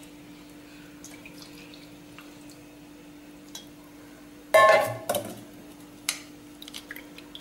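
Metal kitchen vessels and a strainer clinking as a cooled herbal decoction is strained and poured. A loud ringing clank comes about four and a half seconds in, followed by a few lighter knocks.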